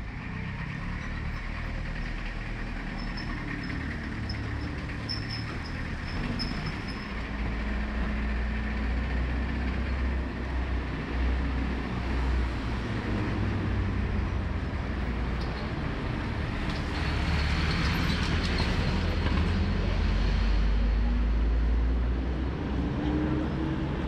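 Street traffic: a large motor vehicle running close by with a deep, steady rumble. About three quarters through there is a rush of hissing noise, and near the end its pitch rises as it speeds up.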